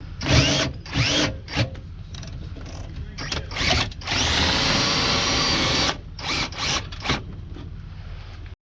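Cordless drill driving a camper's stabilizer jack down, run in short bursts, then steadily for about two seconds in the middle, then in short bursts again, with the jack mechanism ratcheting under it.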